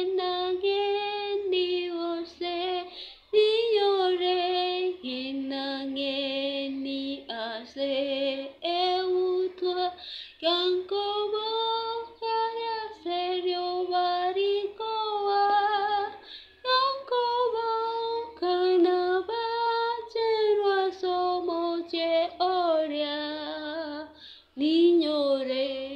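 A woman singing a hymn unaccompanied, in long held notes that slide from one pitch to the next, with short breaks for breath.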